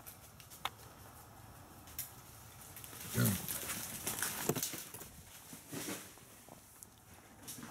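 Feral hogs right close: a loud low grunt about three seconds in, then a few seconds of rustling and crashing through the leaves and brush, with scattered sharp snaps.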